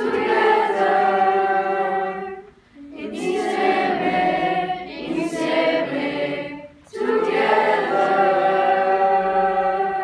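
A teenage school choir singing in several voices, in three long sustained phrases with short breaks between them, the last note held long.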